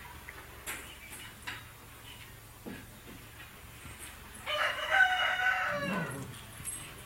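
A single drawn-out animal call, about a second and a half long, starting about four and a half seconds in.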